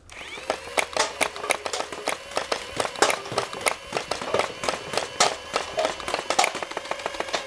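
Custom full-auto Nerf flywheel blaster with a solenoid pusher firing half darts: its flywheel motors spin up with a rising whine right at the start, then the solenoid clacks out a steady stream of shots, about three to four a second, as darts knock over plastic cups.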